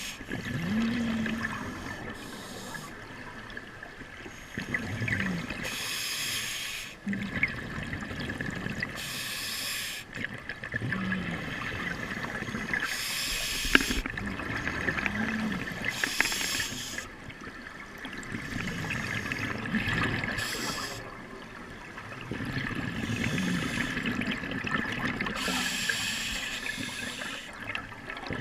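Water sloshing and splashing in surges every three to four seconds, over a steady high whine.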